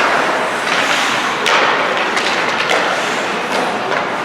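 Youth ice hockey game sounds: sharp knocks and thuds of sticks, puck and bodies against the boards, over a steady din of skates and the rink.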